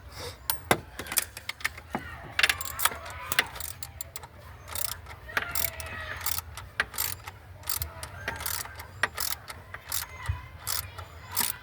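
Irregular sharp metallic clicks and clanks of hand tools, with ratchet-like ticking, as an alternator is being fitted.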